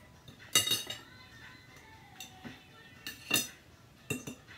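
Metal forks clinking and scraping against ceramic dinner plates, with three sharp ringing clinks: the loudest about half a second in, then two more near the end.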